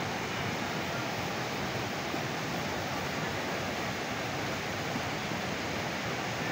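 Mountain river rushing over rocks beneath a log footbridge, a steady, unbroken noise of white water.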